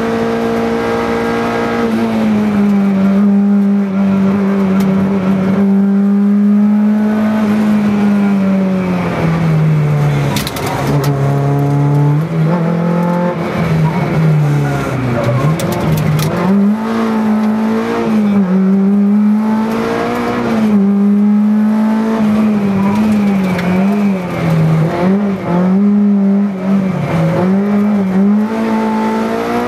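Peugeot 309 rally car's engine heard from inside the cabin at stage pace: held high at first, dropping low as the car slows around ten to fifteen seconds in, then rising and falling quickly again and again through the corners. A few sharp clicks come through around ten and sixteen seconds in.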